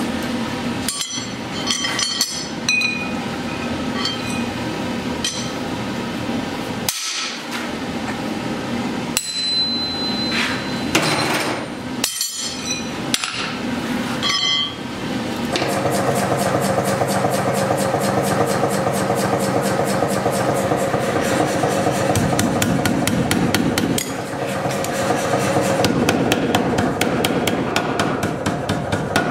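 Steel struck on an anvil with separate, irregular blows, some leaving a ringing tone. About halfway through, a mechanical power hammer takes over, beating a glowing steel bar with rapid, evenly spaced blows.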